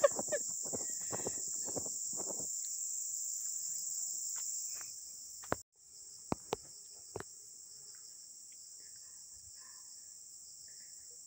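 Steady high-pitched chorus of insects, with a few short clicks and rustles in the first couple of seconds and again a little after halfway. The chorus drops out for a moment about halfway, then carries on a little quieter.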